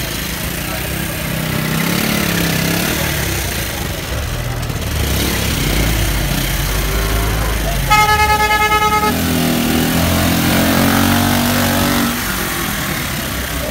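Vehicle engines running close by, with a single horn blast of about a second roughly eight seconds in, followed by an engine passing close.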